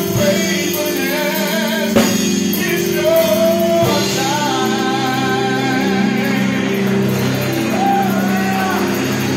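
Live gospel song: a male voice singing long, bending notes over electric keyboard chords and electric guitar, with a couple of sharp drum hits in the first half.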